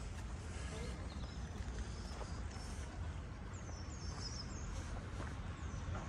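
Street ambience: a steady low hum of the town with birds chirping, a quick run of short falling chirps about halfway through, and faint scattered clicks.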